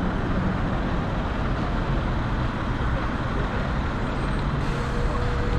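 Steady road traffic noise from cars and buses passing on the road. A faint steady tone joins about five seconds in.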